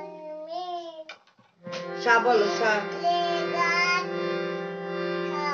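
Harmonium sounding held reed chords while a small child sings along in a wavering voice. The sound drops out briefly a little over a second in, then the chord comes back steady with the child's voice over it.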